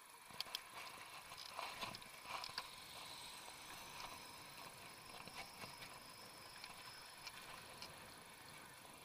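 Electric bicycle rolling over pavement: faint scattered clicks and rattles from the bike, clustered in the first few seconds, over a faint steady high whine.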